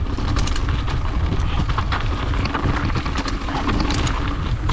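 Mountain bike riding down a dirt trail: a steady low rumble of wind on the microphone and tyres on the ground, with frequent rattles and clicks from the bike over rough terrain.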